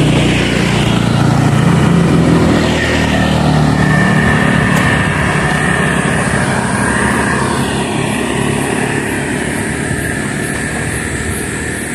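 A vehicle's engine running as it drives along, with continuous road and wind noise. The engine hum is strongest in the first few seconds and then eases.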